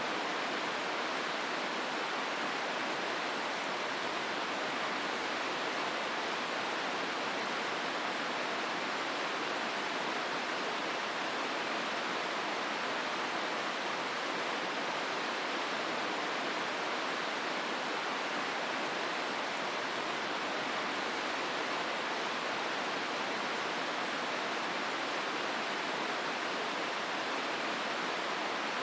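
River water rushing steadily through a gorge, an even, unbroken hiss of flowing water with no other events.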